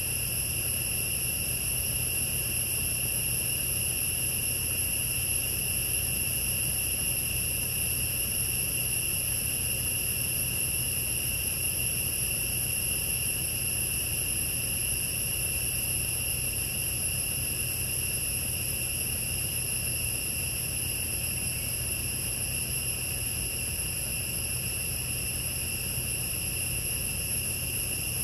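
A steady, high-pitched drone of forest insects that never breaks, over a low, even rumble.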